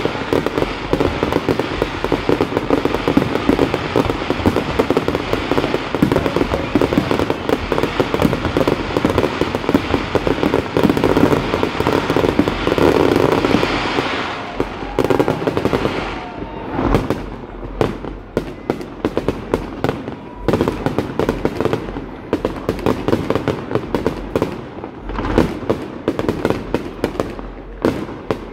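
Aerial fireworks display: many shells bursting in rapid succession with crackling, merging into one continuous din for the first half, then thinning about halfway through into separate bangs and crackles.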